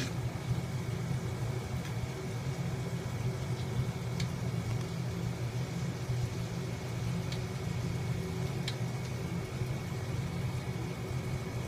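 A steady low hum, like a distant engine or motor running, with a faint thin high tone over it and a few faint ticks.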